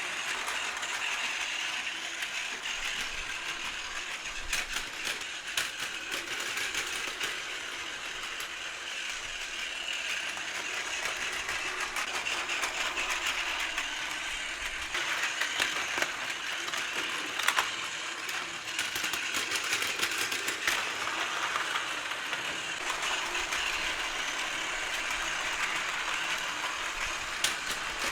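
Battery-powered Plarail toy trains running on plastic track: a steady whir and rattle from the small geared motors and wheels, with a few sharp clicks.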